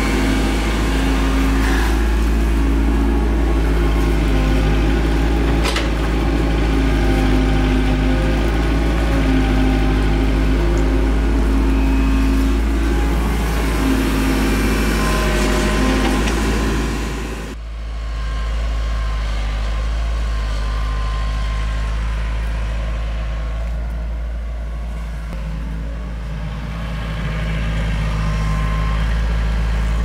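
Compact tracked excavator's diesel engine running as it digs and dumps soil. Just past halfway the sound drops suddenly to a quieter, steadier engine sound.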